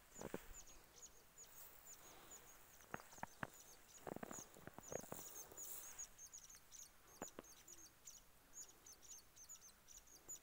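Small birds chirping faintly, many short high falling chirps several times a second, with a few soft thumps in between.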